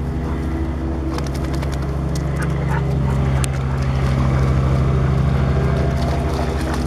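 A dog splashing as she wades and trots through shallow river water, over a steady low motor-like hum that does not change.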